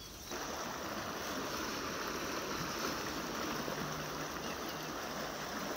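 Steady rushing of a shallow, fast-flowing river over rocks and riffles.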